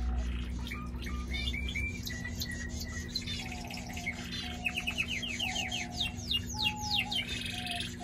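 Canary singing a long, varied song of trills and rolls. Near the middle comes a fast run of repeated notes, and in the last couple of seconds there are quick downward-sweeping notes.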